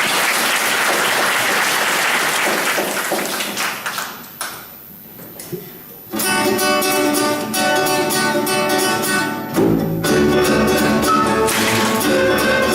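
Hand clapping for about four seconds, dying away. About six seconds in, music starts: plucked guitar, with low bass notes joining near ten seconds.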